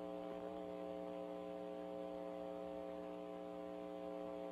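Faint, steady electrical hum on an open telephone line, one unchanging buzzy tone.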